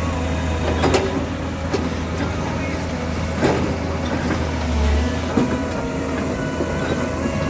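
Komatsu hydraulic excavator's diesel engine running steadily under work, with a few sharp clanks from the bucket and arm as it digs out the ditch.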